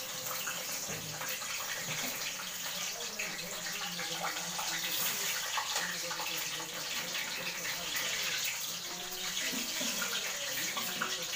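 Hot oil sizzling steadily in a wok as eggplant and tilapia pieces pan-fry, with the light scrape and clicks of a spatula turning them.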